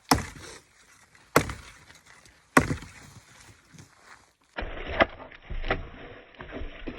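Three sharp axe blows into a dry branch, about a second and a quarter apart. About four and a half seconds in, the sound cuts to a quieter, busier stretch with smaller knocks.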